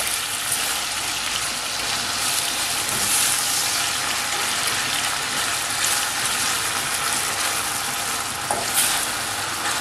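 Sliced onions, tomatoes and sweet peppers sizzling steadily in oil in a stainless steel frying pan while being stirred by hand.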